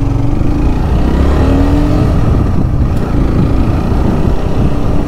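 Sport motorcycle's engine running as the bike pulls away and accelerates, its pitch rising in the first two seconds, then running on steadily under a rush of wind and road noise.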